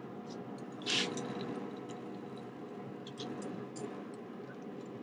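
Small handling sounds: a few light clicks and one short scrape about a second in, over a faint steady background hum.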